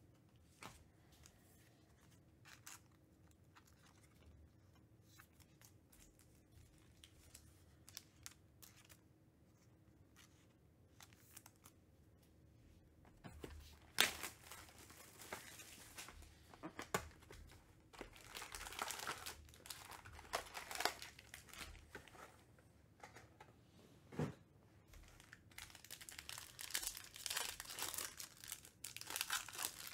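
A few faint clicks at first. From about halfway, a cardboard trading-card box is torn open by hand and foil card packs are crinkled and ripped open, in repeated bursts of tearing and crinkling.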